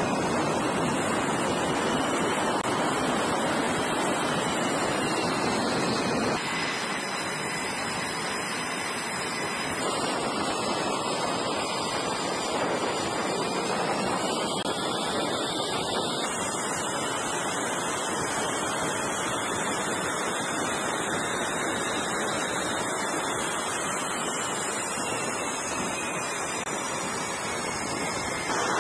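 F/A-18 jet engines running on a carrier flight deck: a steady rushing noise with a faint high turbine whine that glides slowly up and down. The sound shifts abruptly about 6, 10 and 16 seconds in.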